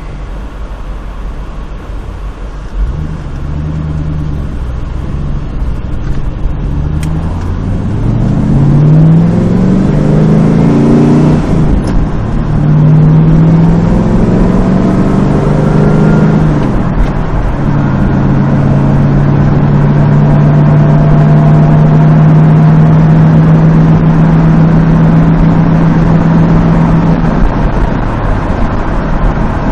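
Lamborghini Countach replica's engine on the move: it pulls up through the gears, the pitch rising and dropping back at each shift, then settles into a steady cruise before easing off near the end.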